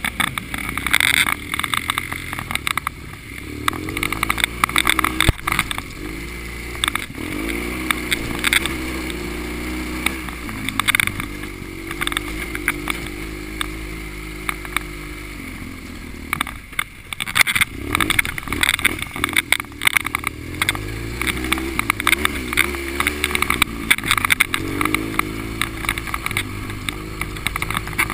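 Motorcycle engine heard from on the bike while riding, its pitch climbing and dropping again and again as it accelerates and shifts gears. Wind rush on the microphone and frequent short knocks and rattles from the rough track run through it.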